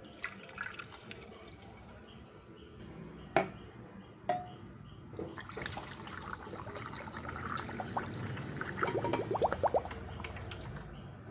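Water being poured into a hot-and-cold ozone steamer's water tank, the filling noise building and rising in pitch near the end as the tank fills. Two sharp clicks of plastic being handled come before the pour, the louder about three and a half seconds in.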